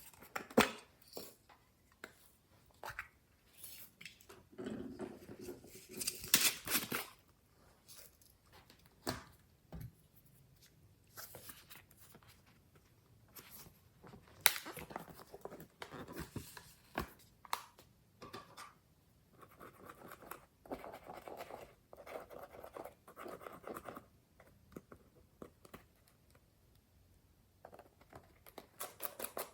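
Glossy slime being squeezed, stretched and poked by hand, making irregular sticky clicks, pops and crackles.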